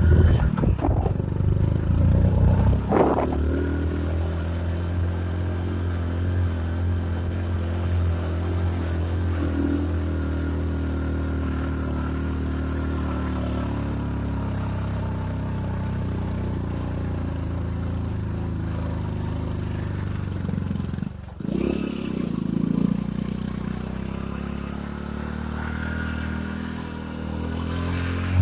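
Motorcycle engine running steadily under way. It surges about two to three seconds in, drops off suddenly about three-quarters of the way through, then picks up again.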